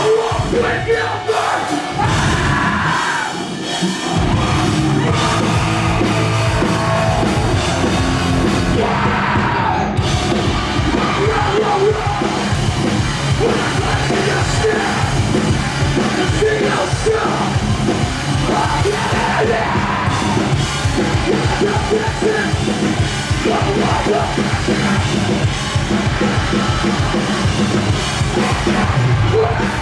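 Live metalcore band playing loud, with screamed vocals over distorted guitars and drums. The bass and drums thin out in the first few seconds, then the full band comes back in about four seconds in.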